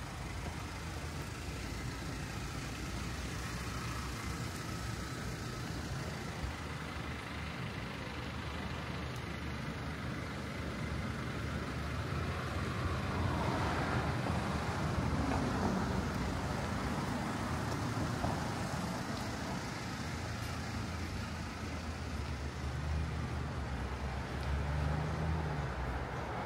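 Road traffic: cars passing along a street, with one louder pass about halfway through and an engine rumbling near the end.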